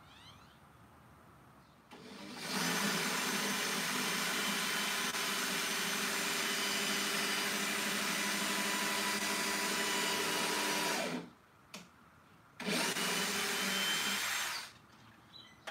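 Cordless drill running steadily under load, driving screws into a wooden platform frame: one long run of about nine seconds, then a second, shorter run a moment later.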